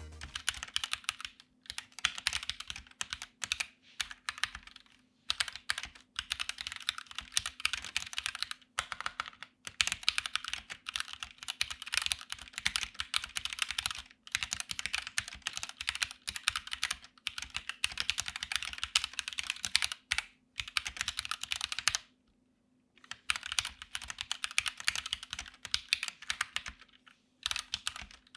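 Typing on a DeepCool KG722 65% mechanical keyboard with Gateron switches and stock keycaps: fast runs of keystrokes in bursts, with short pauses and a longer break about 22 seconds in. Foam between plate and PCB softens the sound, and spring pinging is virtually non-existent.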